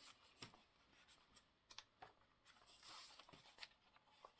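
Faint rustling and light taps of paper and card pieces being handled and shifted on a desk.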